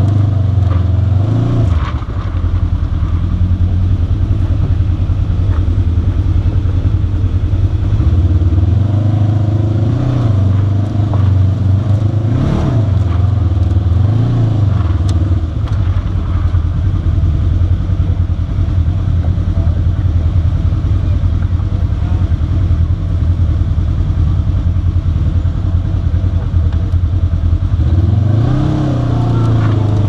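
Polaris RZR side-by-side's engine running with a steady low drone while crawling over rocks, revving up briefly about five times, each rev dropping back to the drone.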